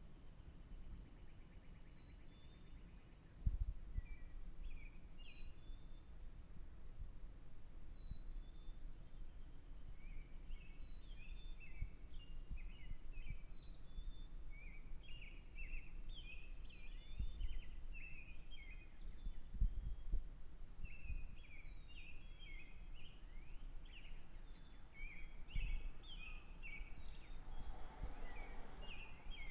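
Songbirds chirping at dawn: many short, quick chirps overlapping, busier from about ten seconds in, with repeated high buzzy trills among them, over a low rumble with a few soft thumps.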